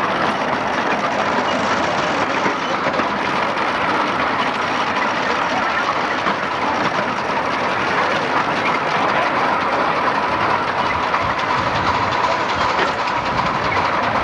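Miniature ride-on railway train running along its narrow track, heard from a passenger car: a steady rattle and rumble of the wheels on the rails. A faint steady whine joins about eight seconds in.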